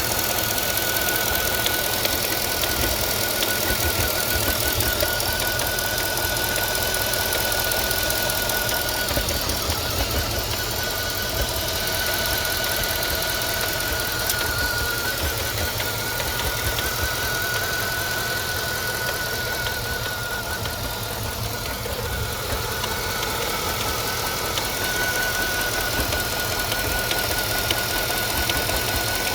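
Mercedes M273 5.5-litre V8 running steadily with an irregular, non-rhythmic rattle. A thin, wavering whine sits over it. The cause of the rattle is still undiagnosed: the owner suspected a broken lever on the variable intake manifold, but the rattle's dependence on engine temperature makes him wonder about the cooling system.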